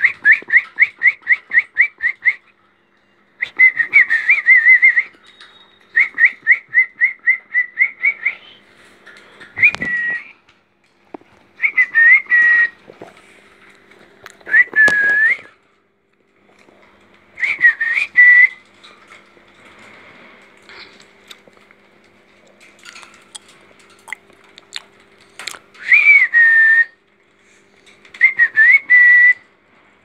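Clear high whistling: quick runs of about four to five short whistled notes a second, then single rising-and-falling whistles every few seconds, with a few faint clicks and knocks in between.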